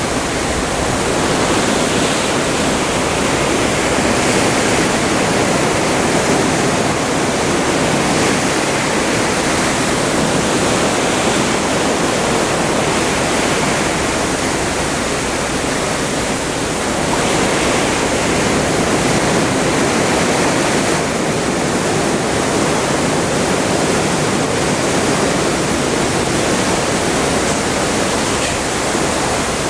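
Open Atlantic sea heard from a moving cruise ship: a loud, steady rush of water and waves, rising and falling gently in loudness.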